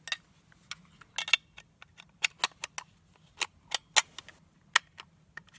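Sharp metallic clicks and clacks, about a dozen at uneven intervals, from the parts of an AK pistol as its stamped steel top cover is handled and fitted back onto the receiver; the loudest comes about four seconds in.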